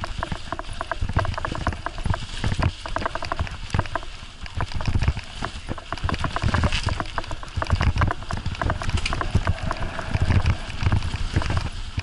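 Jostling noise of a moving action camera on a bumpy packed-snow trail: rapid irregular clattering and clicking with dull thumps every second or so.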